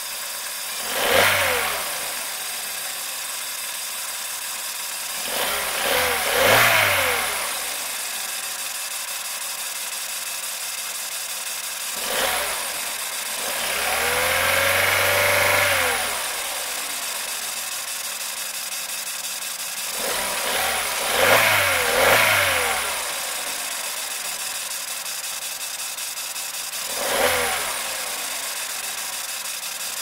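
Opel Corsa 1.2's four-cylinder petrol engine idling, blipped up and back down by the throttle about six times, with one longer rev held for about two seconds midway.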